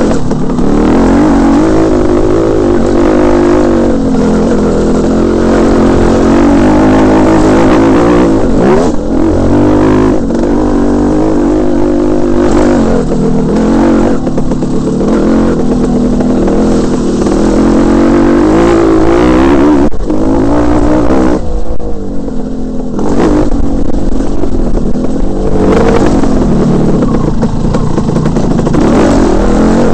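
Dirt bike engine running hard, its pitch rising and falling again and again as the throttle is worked, with a short let-off about two-thirds of the way through.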